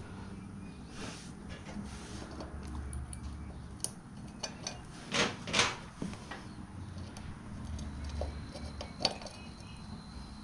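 Light metallic clinks and rattles of a roller chain and hand tools being handled, a scatter of separate clicks with two louder knocks about five seconds in.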